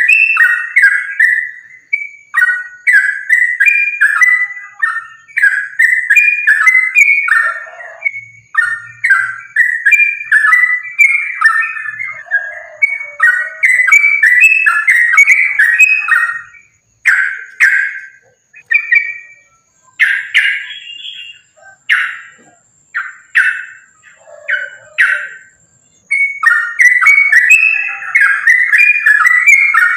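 Yellow-vented bulbul song: a rapid, unbroken run of short, chattering phrases sung in challenge ('tarung'). From about the middle it thins to separate short notes, then comes back dense and sudden near the end.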